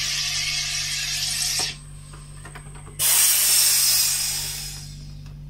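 SodaStream home carbonator forcing CO2 gas into a bottle of water to make sparkling water. A loud hiss cuts off about a second and a half in, and a second, louder hiss starts abruptly a little later and fades away over about two seconds.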